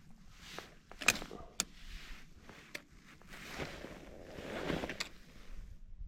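Crunching and scraping on snow-covered lake ice, two longer swells in the second half, with a few sharp clicks or knocks, the loudest about a second in.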